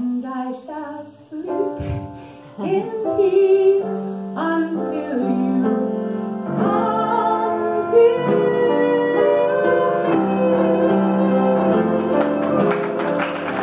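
Live acoustic music: a woman singing with piano and fiddle accompaniment, the notes held long in the second half as the song draws to its close.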